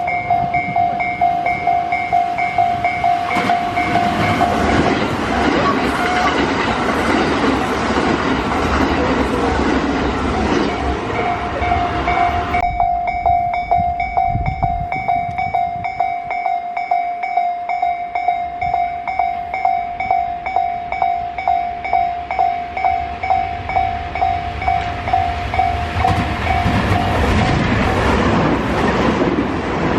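Japanese level-crossing alarm bell ringing a steady, rapidly repeated electronic tone while a Tobu Isesaki Line train passes with loud rumbling wheel and track noise. The train noise cuts off abruptly about twelve seconds in, the bell rings on alone, and it stops near the end as another rumble of passing traffic rises.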